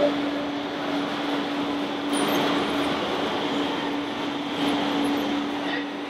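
Remote-controlled model heavy-haulage truck running, with a steady engine-like hum over constant hall noise.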